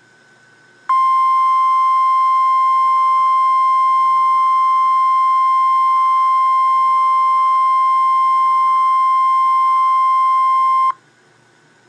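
NOAA Weather Radio 1050 Hz warning alarm tone: a single loud, steady beep that starts about a second in, holds for about ten seconds and cuts off sharply. It signals that an emergency weather alert is about to be read.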